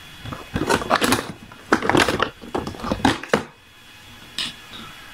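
Irregular rustling and crinkling handling noise for about three seconds as a spool of PLA filament is handled, then a short click or knock about four seconds in.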